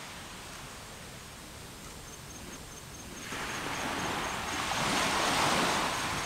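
Surf washing on a shore with wind, a rushing noise that swells about three seconds in and eases off slightly near the end.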